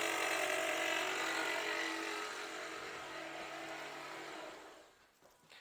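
Toyota Voxy's 3ZR 2.0-litre engine running with a loud, steady pitched noise from the alternator, whose overrunning clutch pulley is failing. The noise fades away about five seconds in.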